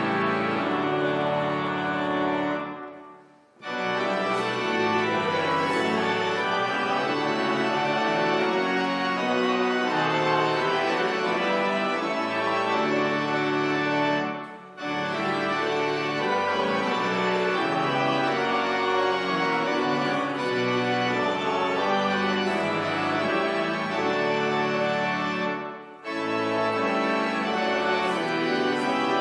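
Organ music: sustained chords played in phrases, each phrase dying away in a short break, about three seconds in, near the middle and near the end.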